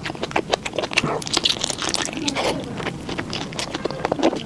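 Close-up eating sounds: chewing and biting, with many quick, irregular clicks and crunches.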